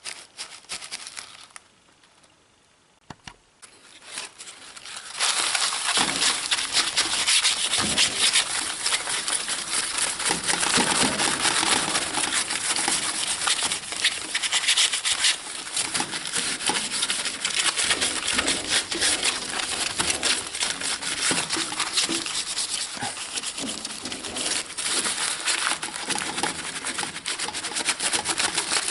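Damp newspaper coated in wood ash scrubbed over the sooty glass door of a wood-burning stove: a dense, continuous rubbing that starts about five seconds in, after a short crinkle of paper and a pause. The ash acts as a mild abrasive to lift the soot off the glass.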